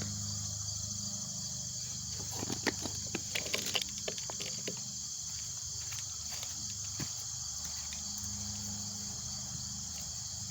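Steady high-pitched chorus of crickets or other insects. About two and a half seconds in comes a quick flurry of clicks and knocks lasting about a second and a half, with a few single clicks after it.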